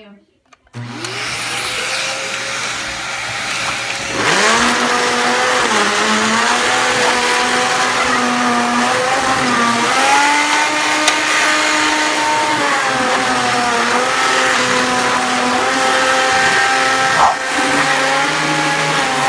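Household vacuum cleaner switched on about a second in, its motor winding up to speed and running. It gets louder about four seconds in, and its whine shifts up and down a little as it runs.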